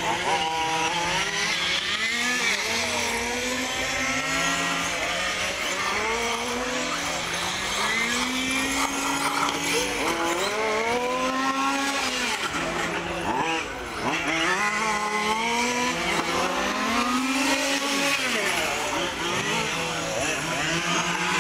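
Brushless electric motor of a 1/5-scale RC buggy running on a 6S battery, its whine rising and falling over and over as it speeds up and slows down. A steady low hum runs underneath.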